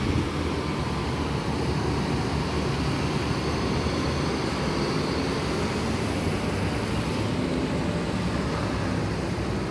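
Large diesel bus engine running steadily, heard as a continuous low rumble.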